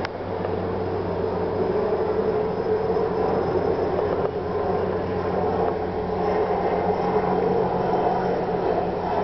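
A steady mechanical hum with a constant low drone, with a sharp click at the very start.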